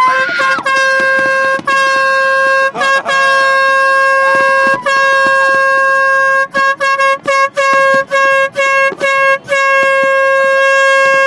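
Air horn blasting a single steady high tone: several long blasts, then a run of short rapid toots from about six and a half to nine and a half seconds in, then one long blast again.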